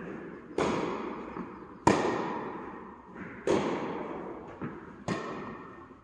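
Tennis balls struck by rackets in a rally, four sharp pops about a second and a half apart, each ringing out in the echo of a large indoor hall, with fainter ticks of the ball bouncing between them.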